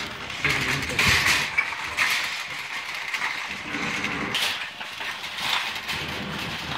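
Rustling and scraping handling noise as the phone rubs against clothing, with the light rattle and clink of a wire shopping cart being pushed, in irregular bursts.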